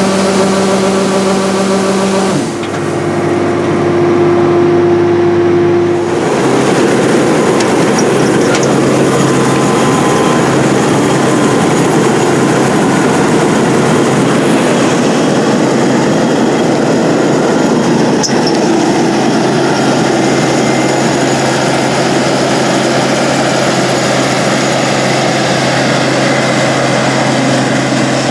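International 815 combine running while harvesting corn. Steady engine tones shift abruptly about two and six seconds in. After that, a dense mechanical noise from the machinery sits over a steady low engine hum.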